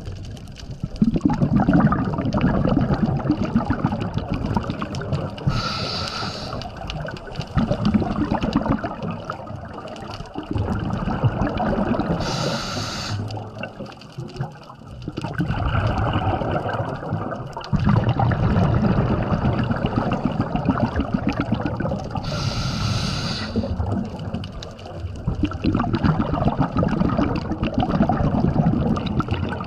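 Scuba diver breathing through a regulator underwater. Short hissing inhales come about every six to ten seconds, and each is followed by several seconds of rumbling, bubbling exhale.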